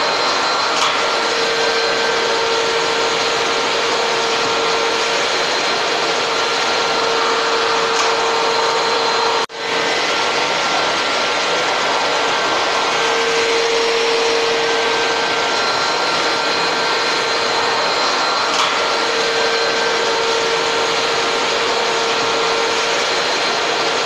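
Canister vacuum cleaner running steadily: a constant loud rush of motor and suction with a steady hum. It drops out for a moment about nine and a half seconds in.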